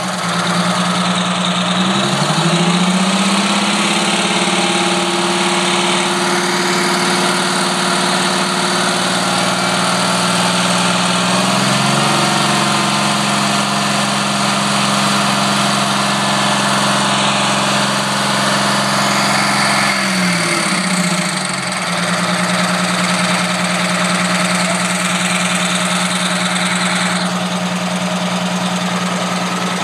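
Detroit Diesel 6V92 two-stroke V6 diesel in a Flxible Metro transit bus, revved and held at raised engine speed. The revs settle, climb about two seconds in, step up further about twelve seconds in, then dip briefly and climb back around twenty seconds in.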